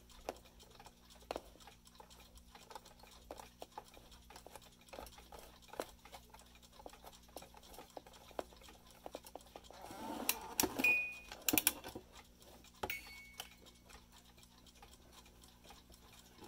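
Small ticks and clicks from a mechanical music-box alarm clock being handled. About ten seconds in there is a louder spell of rustling and sharp metallic clicks, with two brief high pinging notes.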